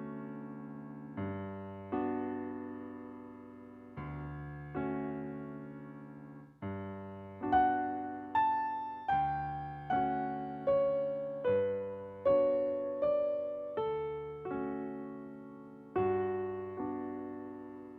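Solo piano playing slow, quiet chords, each struck and left to die away, with a melody of single higher notes stepping downward through the middle.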